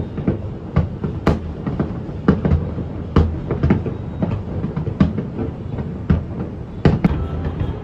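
Fireworks going off at a distance: irregular sharp bangs, about one or two a second, over a steady low rumble of further bursts.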